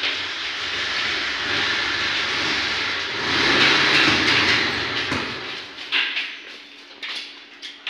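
Collapsible metal lattice gate being slid along its track with a long metallic rattling clatter. It is followed by a few sharp clicks and knocks near the end as its latch is worked.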